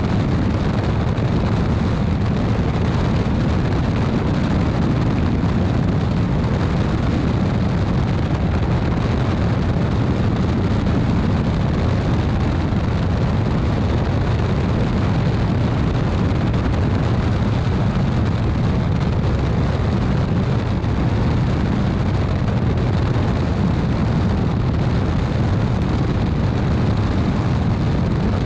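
Steady rush of airflow and the low drone of an Evektor Sportstar light aircraft's four-cylinder Rotax 912 engine in flight, heard from a camera mounted outside under the fuselage. The noise is loud and even throughout, with the weight in the low rumble.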